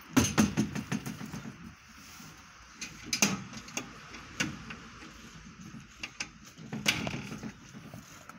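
Footsteps crunching on packed snow in a few irregular bunches of crackles, loudest just after the start.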